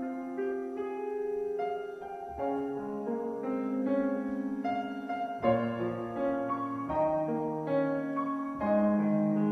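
Solo piano playing a slow introduction in A-flat major: sustained right-hand chords over flowing broken-chord figures in the bass, with a new note or chord every half second or so.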